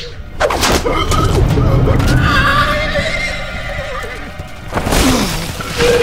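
A centaur crying out in a long, wavering, horse-like whinny as magic ropes bind it, with hooves stamping and a heavy thud near the end as it goes down.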